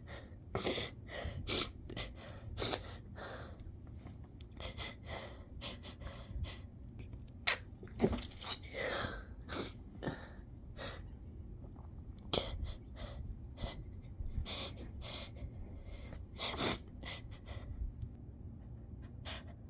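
A person holding back sneezes: many short sniffs and catching, gasping breaths one after another, with stifled sneezes held in, a few louder than the rest.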